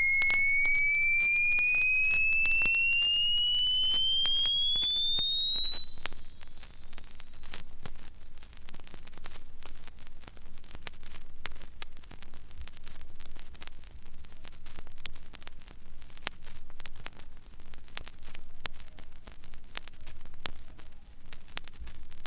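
Electronic oscillator tone: a single pure whistle-like pitch rising slowly and steadily from high to very high across about twenty seconds, with faint crackling clicks throughout.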